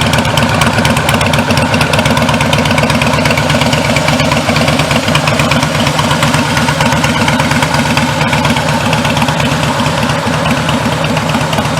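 Harley-Davidson FLS Softail Slim's air-cooled Twin Cam V-twin idling steadily.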